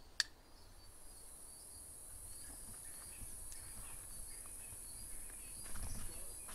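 An insect trilling steadily at a high pitch, starting about half a second in, with fainter chirps behind it. A single sharp click comes right at the start, and there is some rustling in the undergrowth near the end.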